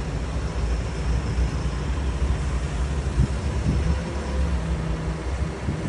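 Diesel engine of a Manitou rotating telehandler running steadily at an even, low pitch while it holds its man basket aloft.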